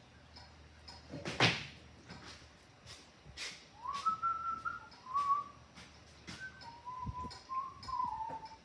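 A person whistling a few held notes of a tune that step down in pitch, starting about halfway through, over a series of sharp clicks and knocks, the loudest about a second and a half in.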